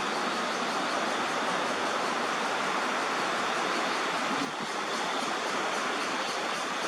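Steady outdoor background din with no distinct events, dipping briefly about four and a half seconds in.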